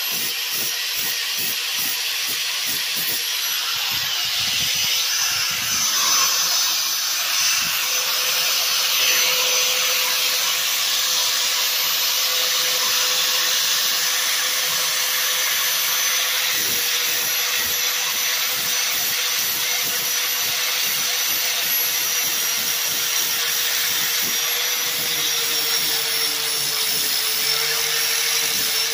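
Angle grinder with an 80-grit flap disc running steadily, its motor whining at one pitch over a gritty hiss as the disc is lightly worked over fiberglass body filler. The whine dips slightly in pitch near the end.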